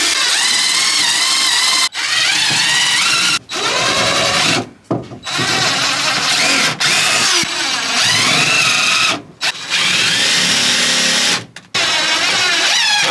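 Power drill running loudly in about six runs of one to four seconds with short breaks between, its pitch wavering as the load changes.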